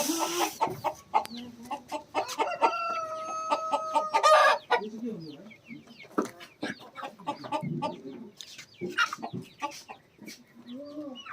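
Chickens clucking in short calls among scattered clicks, with one long, level call held for about two seconds starting about two seconds in.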